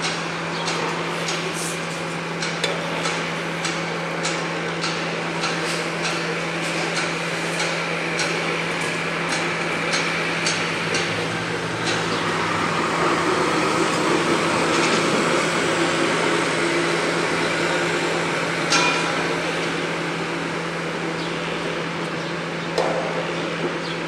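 Hammer blows on a building construction site, about two strikes a second, over a steady low hum of machinery. About halfway through the hammering stops and continuous machinery noise swells, with only a stray strike later on.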